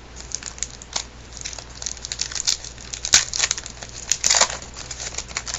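A baseball card pack wrapper being torn open and crinkled: an irregular run of crackling rustles, with the sharpest tears about three seconds in and again around four seconds in.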